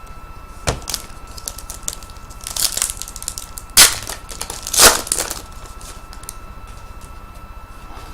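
Crinkling and rustling of plastic wrapping as trading cards are handled, in a few short bursts, the loudest about four and five seconds in.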